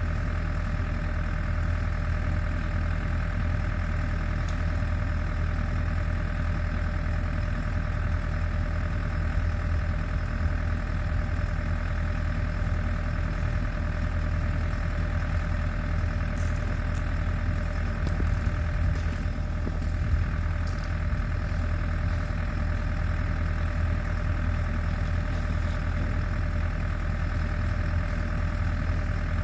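Champion portable generator's engine running at a steady speed, an even hum with no change in pitch.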